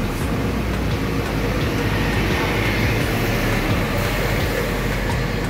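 Suzuki Ertiga's petrol engine running steadily at low revs through an aftermarket exhaust, a low even rumble.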